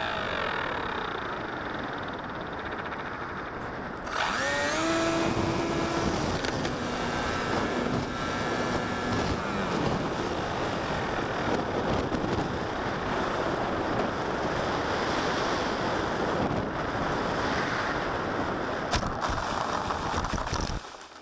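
Onboard sound of an RC plane in flight: the motor and propeller whine, falling in pitch at first, then throttling up with a rising pitch about four seconds in, under heavy wind rush on the onboard camera's microphone. The sound cuts off suddenly near the end.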